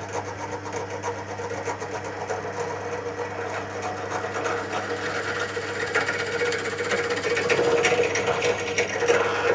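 Bench pillar drill running with a steady motor hum while drilling into a wooden block to clear out a mortise, louder in the last few seconds.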